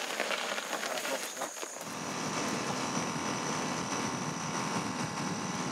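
Scuffs and knocks of men pushing a loaded quad bike by hand. About two seconds in, the quad's engine runs steadily as it drives along a dirt track, with a steady high insect trill above it.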